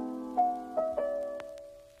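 Background piano music: a few soft single notes sounding over held chords, the music dying away to near silence by the end.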